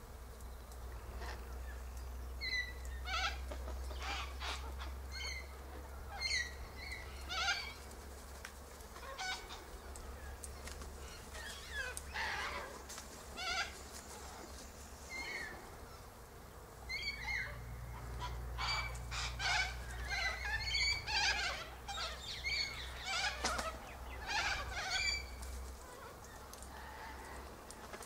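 A flock of sulphur-crested cockatoos calling as they feed in a treetop: scattered short calls, coming thicker and overlapping from a little past the middle.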